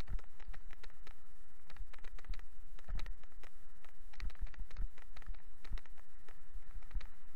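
A bicycle rolling along a paved road, with an irregular clatter of knocks and rattles as the bike and its mounted camera jolt over the surface, over a low wind rumble on the microphone.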